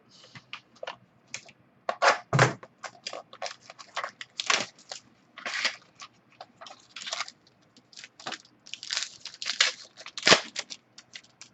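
Plastic packaging and a plastic trading-card holder being handled, crinkling, crackling and clicking irregularly. A few sharper cracks stand out, the loudest about two and ten seconds in.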